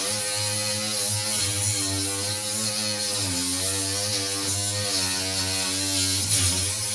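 Die grinder with a flap disc grinding off rivet heads: a steady motor whine with a grinding hiss. The pitch sags briefly about three seconds in and again near the end as the disc bites under load.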